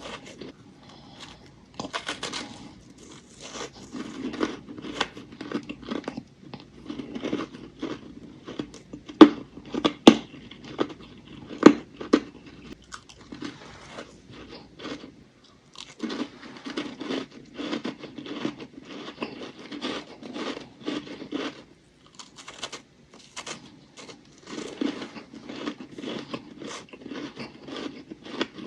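Close-up crunching of ice being bitten and chewed: rapid runs of sharp crunches with a few short pauses, the loudest bites coming about ten seconds in.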